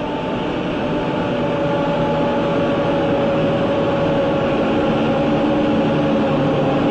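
Diesel-electric locomotives in dynamic braking on a steep downgrade, their generators reversed to act as brakes. They wail in a loud, steady whine that sags slightly in pitch, over the steady noise of the moving train.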